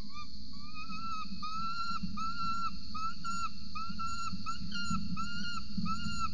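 Juvenile peregrine falcon begging for food with a run of repeated calls that each rise, hold and drop. The first notes are long and drawn out, and the later ones are shorter, at about two a second.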